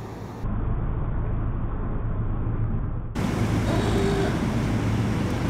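Narrowboat engine running steadily, a low hum that gets louder about half a second in.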